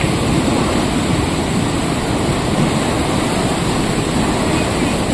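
Brown floodwater rushing down a swollen stream in spate: a loud, steady noise of churning water.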